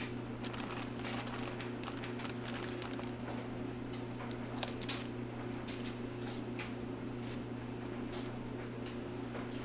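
Crinkling of a plastic Funyuns snack bag and crunching as snacks are eaten from it, many short crackles, one a little louder about five seconds in, over a steady low hum of laundromat machines.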